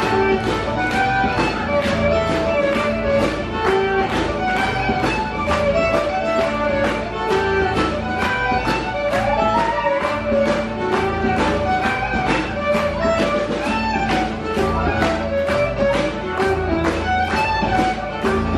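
Scottish ceilidh dance music, led by fiddle with guitar, over a quick, steady beat.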